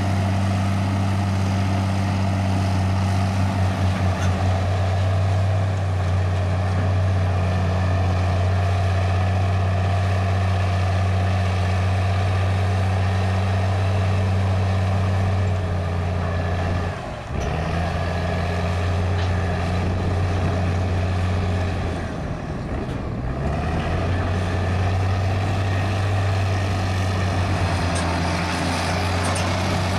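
Caterpillar 816 soil compactor's diesel engine running steadily as the machine pushes and drives over dirt. Its note dips and shifts briefly about halfway through, then wavers once more a few seconds later.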